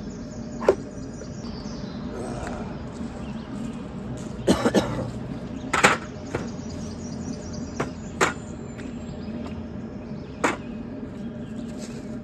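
Half a dozen sharp knocks and clatters at irregular intervals, the loudest a cluster about four and a half to six seconds in, over a steady low hum.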